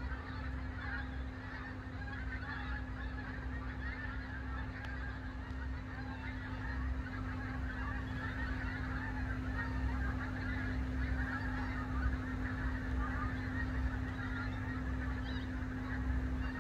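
A large flock of migrating geese honking as they fly overhead, many calls overlapping into a continuous chorus.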